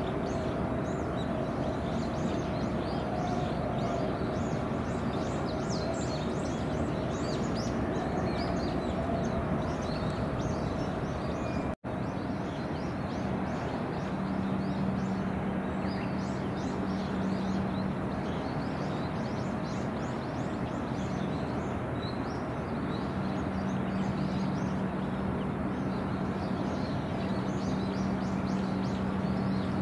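Outdoor harbour ambience: a steady rush of background noise with many small birds chirping throughout. A steady low hum comes in about fourteen seconds in, drops out for a while and returns. The sound cuts out for an instant about twelve seconds in.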